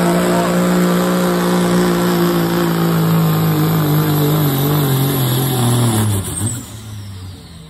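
Dodge Ram's turbo-diesel Cummins straight-six at full throttle, dragging a weight-transfer sled. The engine note sags slowly lower as the load builds. About six seconds in, the throttle is lifted: the engine falls away sharply and a high turbo whistle winds down.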